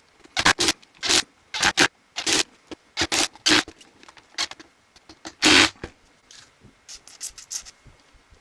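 An irregular series of short scraping or rubbing strokes by hand, about a dozen, with one longer stroke about five and a half seconds in and a quicker run of lighter strokes near the end.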